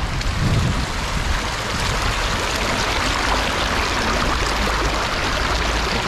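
Swift river water rushing, a steady, even noise, with a brief low bump about half a second in.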